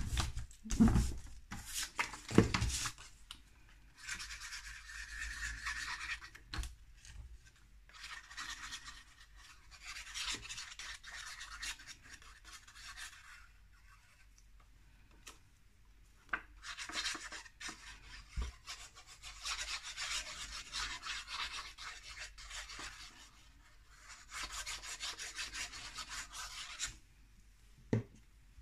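Hands pressing down and rubbing patterned paper flat onto cardstock: a few knocks near the start, then long runs of scratchy rubbing strokes, with a pause of a few seconds in the middle.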